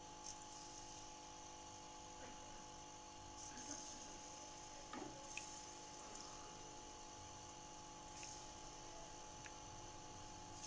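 Faint sizzling of batter-coated potato wedges deep-frying in hot oil in a wok, flaring into short bursts of hiss several times as more wedges are dropped in, over a steady hum.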